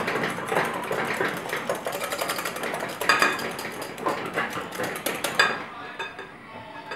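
Wire whisk beating egg yolks in a glass bowl over a bain-marie, a fast clatter of wire against glass. This is the yolks being whisked over hot water for a butter sauce. It turns quieter about five and a half seconds in.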